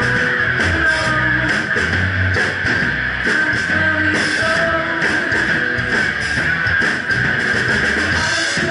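Live rock band playing: electric guitar strumming over a Ludwig Vistalite acrylic drum kit keeping a steady beat.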